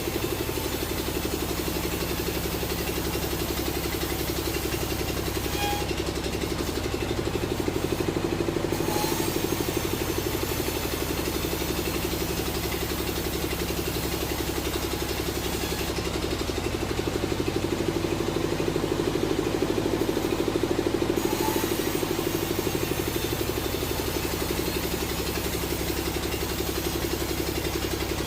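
Sawmill machinery's engine running steadily: a continuous, even mechanical drone with only small swells in level.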